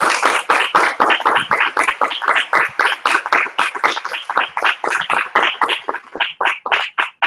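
Audience applauding, dense at first and thinning to a few scattered claps near the end.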